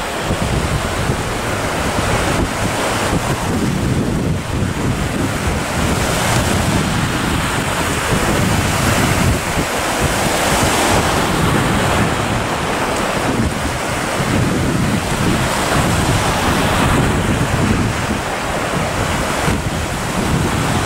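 Wind buffeting the microphone in uneven gusts over the steady wash of a choppy, whitecapped sea with breaking waves.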